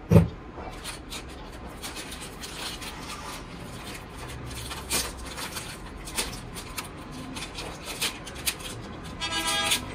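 Paper and plastic crackling and rustling as the backing is peeled off a tyre repair patch, with a thump just after the start. A vehicle horn sounds briefly near the end.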